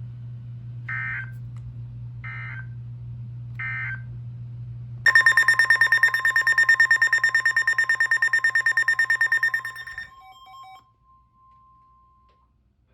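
Emergency Alert System tones: three short screechy digital data bursts about a second and a half apart, then a loud, rapidly pulsing alert tone for about five seconds. It cuts off and leaves a fainter steady tone that dies away, all over a low hum.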